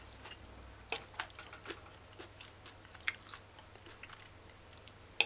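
A person chewing a mouthful of food, with scattered faint clicks and sharper ones about a second in, about three seconds in and near the end.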